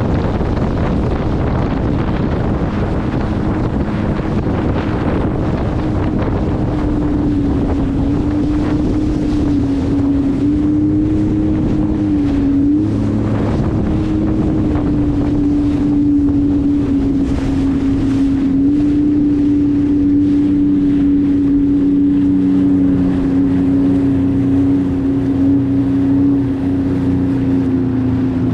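Jet ski engine running at a steady high pitch while underway, dipping briefly in pitch a few times, with wind buffeting the microphone.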